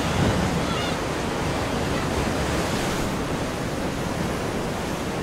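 Strong wind and sea surf at the shore: a steady, even rushing noise.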